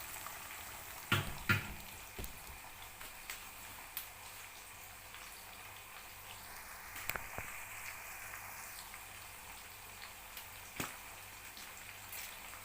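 Onion and pepper frying in red palm oil, a steady low sizzle with scattered crackles and pops. Two knocks about a second in, like a spoon against the pot.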